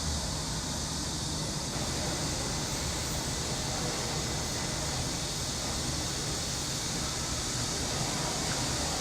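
Steady, unbroken chorus of summer cicadas, a high shrill hiss, over a low background rumble.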